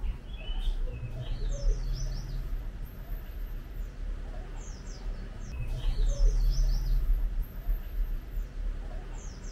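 Small birds chirping in quick clusters of short rising and falling calls, heard twice, around the first two seconds and again about six seconds in, over a steady low rumble.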